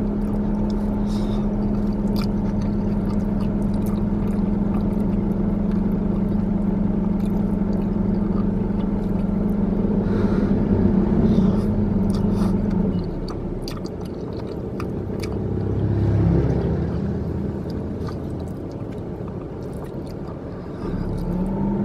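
Steady hum of a car heard inside its closed cabin, with a droning tone that drops out about 13 seconds in and returns near the end, and a swell in the noise around 16 seconds in. Light clicks and chewing from eating with a plastic fork come through on top.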